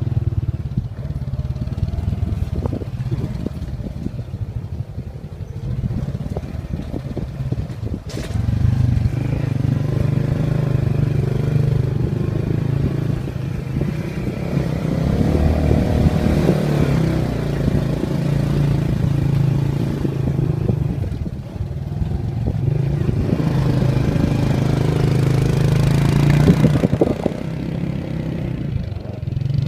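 Motorbike engine running under load on a rough dirt trail, its note easing off twice and picking up again, with scattered knocks and rattles.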